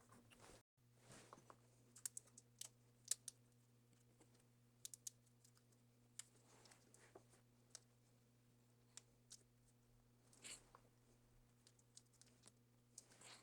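Faint, scattered clicks and taps of small tools and parts being handled on a laptop's opened internals during reassembly, with one or two short scrapes, over a low steady hum.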